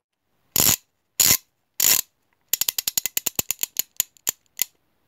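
Logo sound effect: three short noisy bursts, then a run of sharp ratchet-like clicks that starts fast and slows down until it stops.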